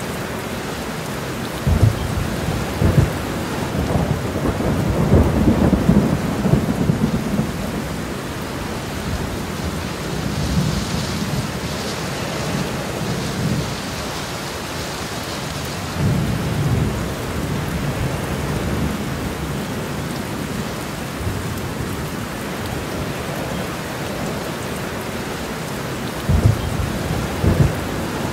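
Steady heavy rain with thunder rumbling several times: a couple of seconds in, longest from about four to seven seconds, again around sixteen seconds, and twice briefly near the end.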